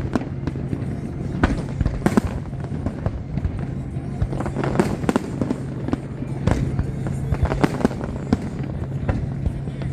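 Aerial fireworks shells bursting in irregular succession, about a dozen sharp booms, over a steady low hum.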